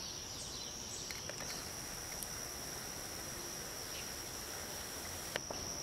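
Steady high-pitched insect trill, as of crickets, running on unbroken, with one soft click about five seconds in.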